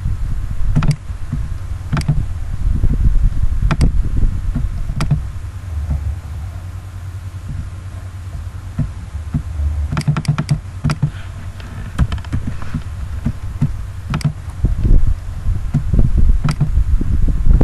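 Computer mouse clicks and a short burst of keyboard typing, heard as sharp separate clicks with a quick cluster of key presses about ten seconds in, over a steady low rumble.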